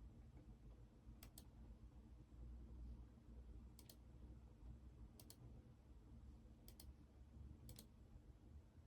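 Five faint computer mouse clicks, each a quick double click, spaced one to two and a half seconds apart, over a low steady room hum.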